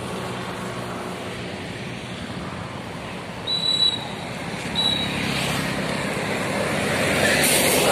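Highway traffic passing, a steady road noise that grows louder from about five seconds in as a vehicle comes close. Two short high beeps sound a little after three seconds and again near five seconds.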